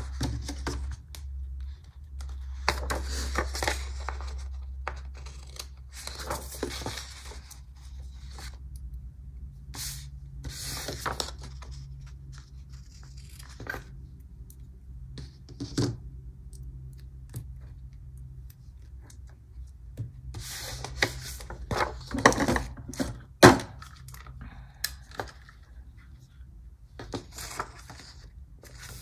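Paper and stickers being handled at a desk: irregular rustling, peeling and scraping, with a sharp click or tap a little past two-thirds of the way through.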